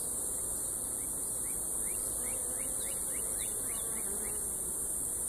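Honeybees buzzing steadily around an opened hive and a frame of bees held up for inspection, with a faint wavering hum from a bee flying close past. A steady high hiss sits over it, and a run of quick faint chirps passes in the middle.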